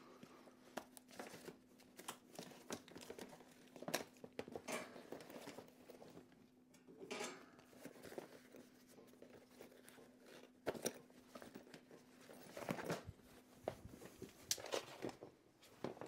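Rummaging through a soft tool bag: irregular rustling and crinkling with scattered sharp clicks and knocks of tools, over a faint steady low hum.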